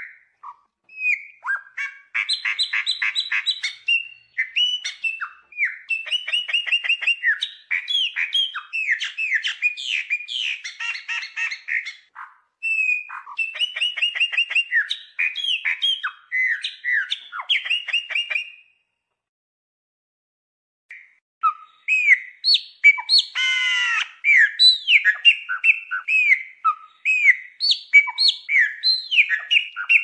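Chopi blackbird (pássaro preto, graúna) singing a long, varied song of whistled notes, rapid clicking series and sweeping phrases. It stops for about two seconds about two-thirds of the way through, then resumes with a short harsh buzz among the whistles.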